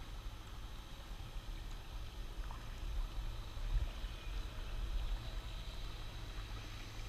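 Water lapping and sloshing against a kayak, heard close from a camera just above the waterline, over a steady low rumble.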